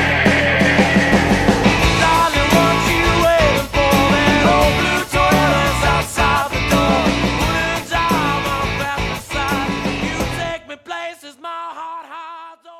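Rock song with guitar and drums. About ten and a half seconds in the full band drops away, leaving a quieter held part that fades out.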